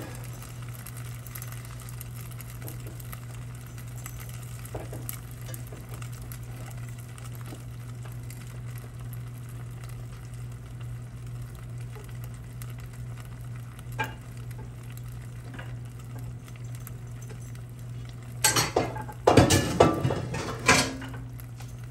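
A utensil scraping and stirring in a pan to work out the last of the gravy, faint for most of the time over a steady low hum. Several loud scrapes and clanks against the pan come near the end.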